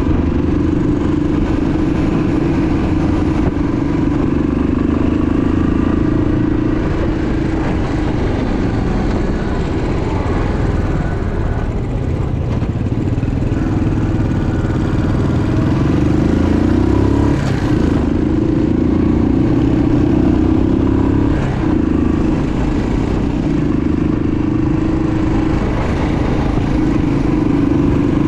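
A motor vehicle's engine running steadily, with a couple of brief sweeps in pitch about two-thirds of the way through.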